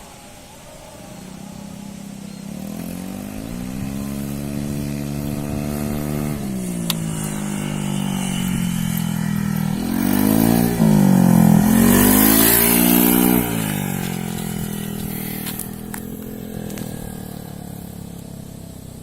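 Honda Vario 130 scooter engine running and being revved. The pitch climbs and drops back, then swings up and down in a few quick blips about ten to thirteen seconds in, the loudest part, before settling back toward idle.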